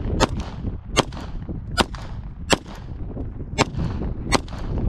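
Pistol fired six times in steady succession, a little faster than one shot a second, each sharp crack followed by a short echo.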